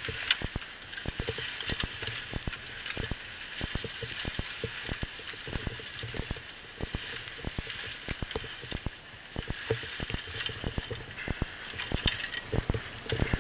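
Rapeseed plants rustling and their stalks crackling and snapping against a person wading on foot through a dense field, with footsteps, over a steady hiss.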